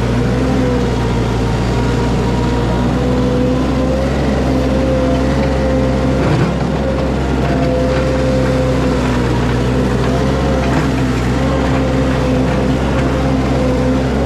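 Compact loader's engine running at a steady speed, its pitch wavering slightly, with a single knock about six seconds in.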